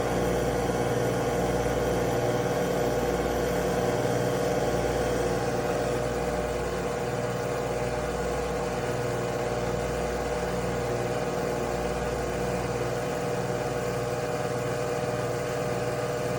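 Nespresso Vertuo Pop+ coffee machine running a brew cycle: a steady motor hum from the capsule spinning and the pump, with a slow, regular pulsing underneath.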